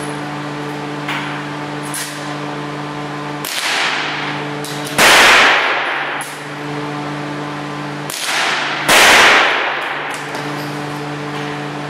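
Two shots from a CZ 455 bolt-action rifle in .22LR, about four seconds apart, each followed by about a second of reverberation. A steady low hum runs underneath.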